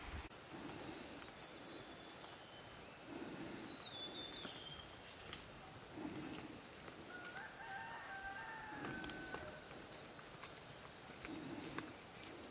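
A rooster crows once in the distance, one long call about two-thirds of the way through. It sounds over slow, evenly spaced footsteps on a path, a short high bird chirp and a steady high hiss.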